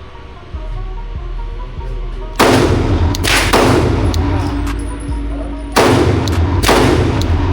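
A 9mm Glock pistol fired four times in two pairs, each pair under a second apart, with each shot ringing out after it. Background music runs underneath.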